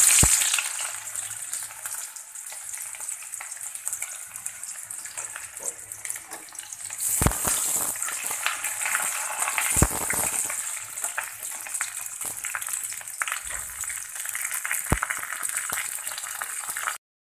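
Chopped onion frying in hot oil in a karahi, a steady sizzle that grows louder about seven seconds in, with a steel spatula knocking against the pan a few times as the onion is stirred.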